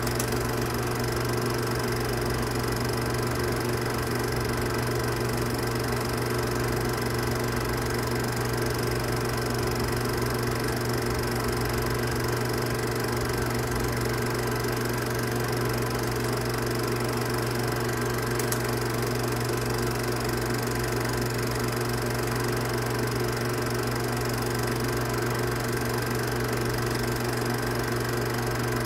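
Film projector running: a steady mechanical hum and whir that neither rises nor falls.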